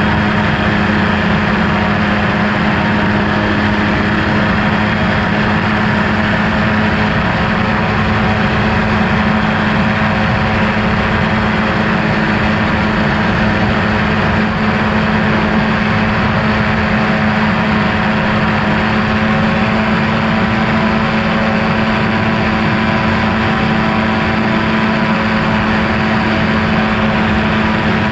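Quicksilver MXL-2 light sport airplane's engine and propeller running at a steady cruise setting in flight, an unchanging loud drone.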